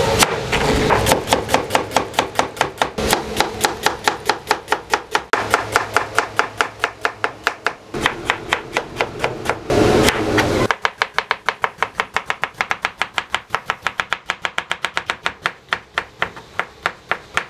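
Kitchen knife chopping vegetables on a wooden cutting board: quick, even strokes, several a second, in a few separate runs.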